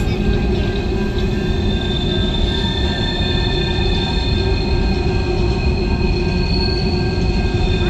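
Empty CSX coal train's cars rolling past, the steel wheels rubbing and squealing against the rails in several steady high tones over a continuous low rumble.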